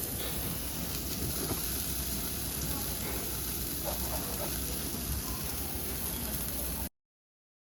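Steady hissing noise with a low rumble underneath, cutting off abruptly near the end.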